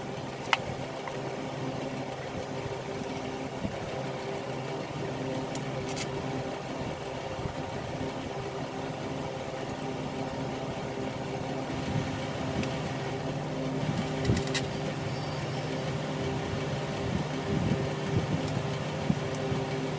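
A steady mechanical hum with a few short, sharp clicks, about half a second in, around six seconds in, and near the middle.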